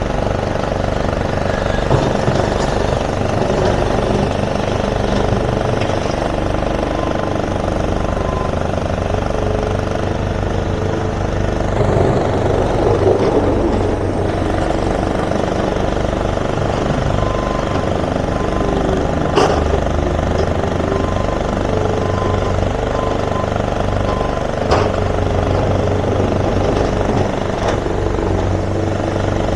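Excavator's diesel engine running steadily as it loads hardcore into a truck, with two sharp knocks in the second half.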